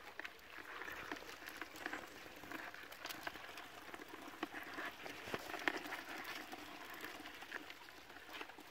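A bucketful of live American signal crayfish crawling over each other, giving a faint, continuous crackle of small clicks and scrapes from their shells and legs against one another and the plastic bucket.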